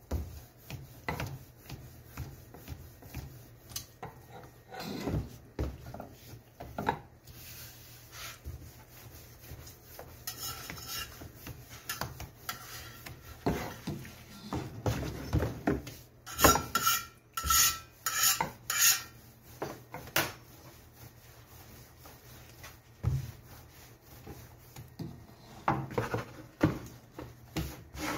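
Rolling pin rolling out paratha dough on a hard board: rubbing and rolling strokes with irregular knocks as the pin is set down and picked up, and a run of about five louder clacks a little past halfway, with hands patting and handling the dough.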